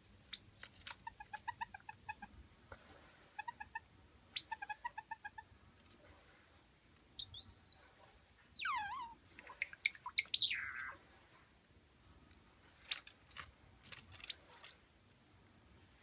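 Java sparrow calling: runs of short, quick notes in the first few seconds, then a long whistled note that rises and slides steeply down, and a shorter falling note. A few sharp clicks near the end.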